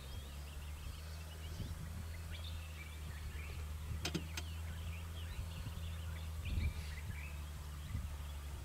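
Safari game-drive vehicle's engine idling steadily, with small birds chirping and two sharp clicks about four seconds in.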